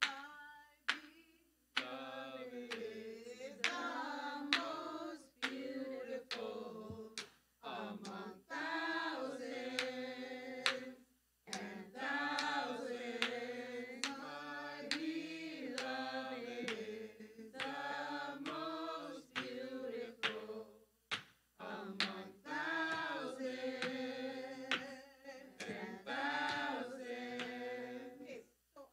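A small mixed choir singing a cappella in harmony, phrase by phrase with short breaks, after a few sharp claps at the start.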